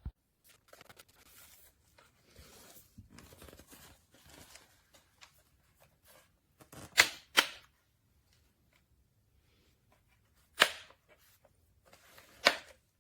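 Handling noise: faint rustling, then four sharp clicks or snaps. Two come close together about seven seconds in, one near eleven seconds and one near the end.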